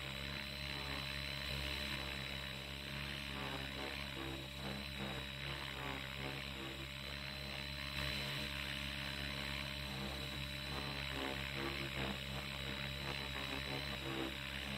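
Radio-controlled helicopter flying at a distance, a steady hum from its rotor and drivetrain with a steady high tone over it.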